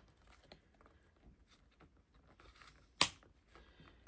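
Faint scraping and small clicks of fingers prying at the metal keyboard plate of an HP EliteBook 830/835 G7 top cover, then one sharp snap about three seconds in as part of it pops free.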